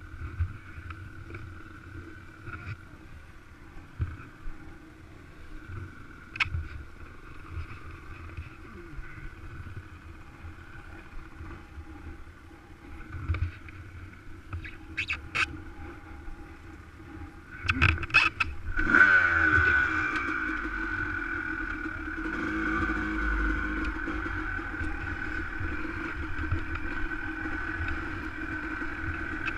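Dirt bike engine idling steadily, with a few scattered knocks and clicks. About two-thirds of the way through it is revved and then runs louder and steady as the bike rides off over rocky ground.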